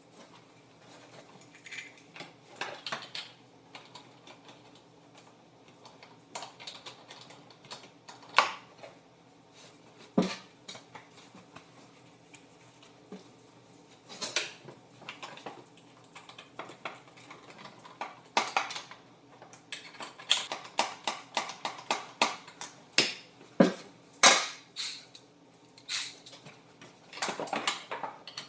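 Scattered metallic clinks and knocks of bolts, washers and hand tools as a seat belt is bolted onto a seat, coming thicker and louder in the last several seconds.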